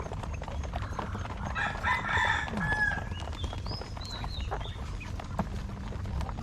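Farmed quail calling: short high chirps, and one louder call of about a second's length about two seconds in, over many small clicks and a steady low hum.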